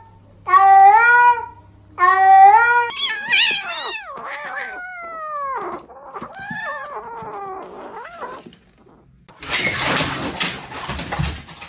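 Domestic cat meowing in long drawn-out calls: two loud ones, then a run of shorter calls that fall in pitch. About two-thirds of the way through, the calls give way to a stretch of rustling noise.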